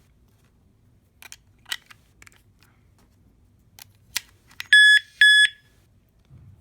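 Nulock Bluetooth bike lock's electronic beeper giving two short, loud beeps as it powers up, the sign that the lock is working with its batteries fitted. A few sharp clicks of the AAA batteries being pressed into the compartment come before.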